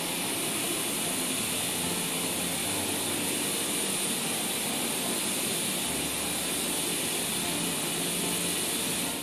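Canister vacuum cleaner running steadily, its brush nozzle being drawn over a Briard's long coat: a rush of air with a high motor whine over it. It cuts off abruptly at the end.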